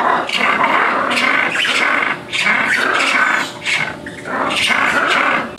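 Ring-tailed lemur calling loudly: a harsh, unbroken run of cries in three long stretches, with short breaks about two and four seconds in.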